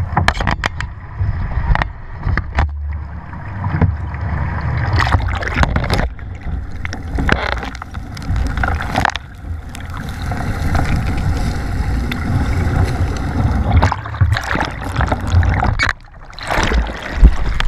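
River water splashing and gurgling right against the microphone as it is dipped in and out of the surface beside a paddled kayak, with a low rumble and many sharp knocks of water on the housing.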